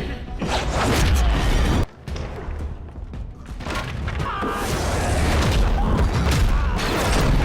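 Action-film sound effects: deep booming rumbles with clattering impacts and music underneath. The sound cuts off abruptly about two seconds in, then builds back up.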